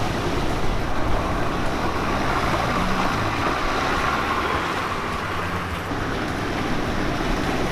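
A 4WD vehicle fording a river: steady rushing and splashing of water pushed aside by the vehicle, with its engine running low underneath.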